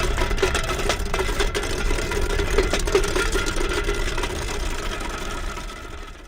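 Car engine running at steady revs with a rough, even note, fading out over the last couple of seconds.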